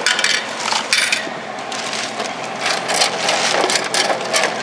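Repeated clattering knocks and bumps at the delivery port of a Dixie Narco Bevmax glass-front vending machine as a bottle is taken out through its plastic push door.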